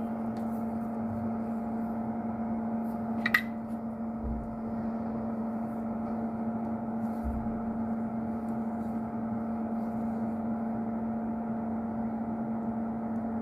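Steady electrical hum with fan-like noise from bench equipment during fine soldering work. A single sharp tick comes about three seconds in, and there are two soft low bumps a little later.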